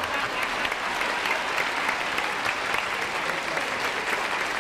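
Studio audience applauding steadily: a dense, even patter of clapping.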